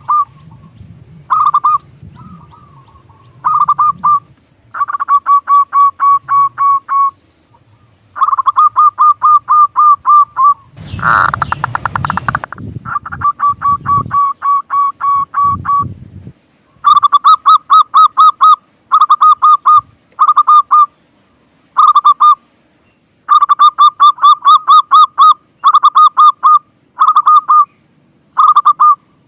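Zebra doves (perkutut) cooing in rapid trains of short, clipped notes, some brief and some long runs of a dozen or more notes, repeated with short gaps. A brief noisy burst sounds about eleven seconds in.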